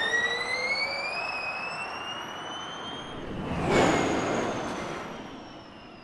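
Gen3 Formula E car's electric drivetrain whining, rising in pitch as it accelerates away. A louder rush swells about four seconds in, then the whine drops slightly in pitch and fades into the distance.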